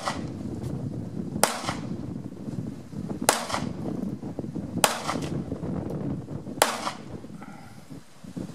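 Four pistol shots fired at a slow, even pace, one about every 1.7 seconds. Each is a sharp crack with a short echo trailing off.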